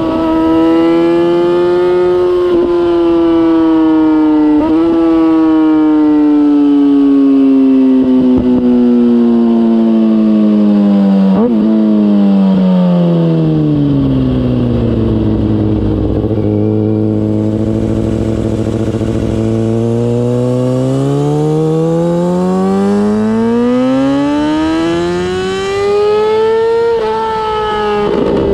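Kawasaki ZX-6R inline-four through a MIVV GP aftermarket exhaust, ridden on a steady throttle. The engine note holds fairly high, then sinks to a low steady drone about halfway through as the revs drop. It then climbs smoothly back up near the end as the bike accelerates. A few brief sharp cracks cut in during the first half.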